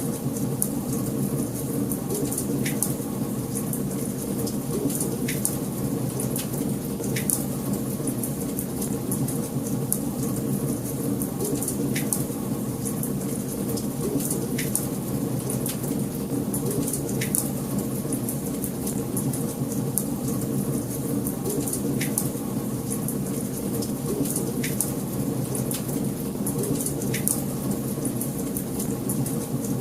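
Wood fire burning in a fireplace: a steady low rumble of flame with many small sharp crackles, and a slightly louder pop about every two and a half seconds.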